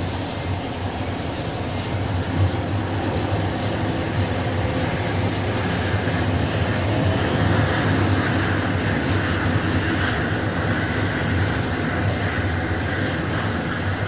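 A de Havilland Canada Dash 7's four turboprop engines running steadily: a constant drone with a thin high whine on top, which rises slightly around the middle.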